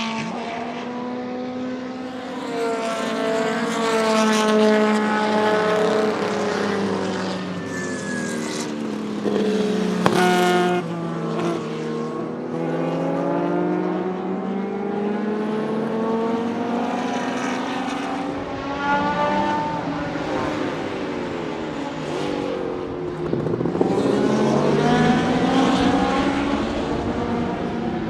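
Porsche 935 K3 Kremer race car's twin-turbo 3.2-litre flat-six at speed on track, its note repeatedly rising and falling as it accelerates, shifts and passes. A sharp crack comes about ten seconds in.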